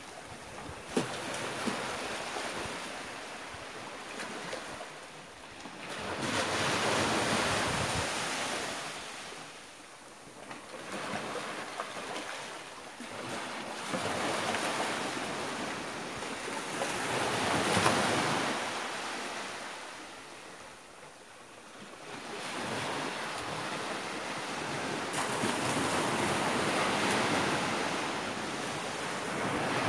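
Small waves breaking and washing up a sandy beach, the surf swelling and fading in slow surges every few seconds.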